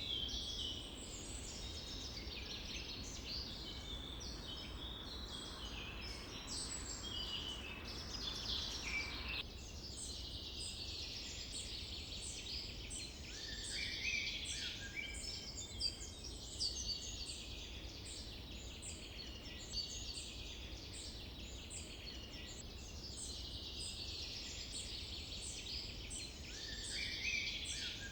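Forest ambience: many birds singing and chirping at once, short overlapping calls and trills, over a steady low background rumble.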